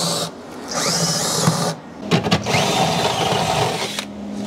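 DeWalt cordless drill boring a hole into the car's body metal, running in bursts with short stops about half a second and two seconds in.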